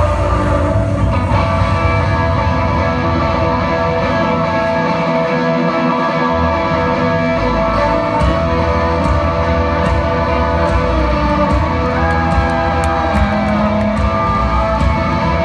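Live country band playing through a PA, guitar to the fore over drums and bass.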